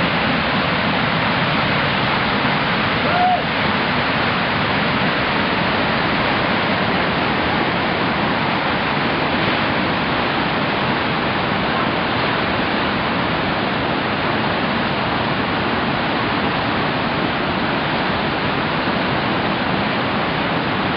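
Whitewater rapids rushing steadily through a rocky river gorge, a continuous heavy wash of churning water.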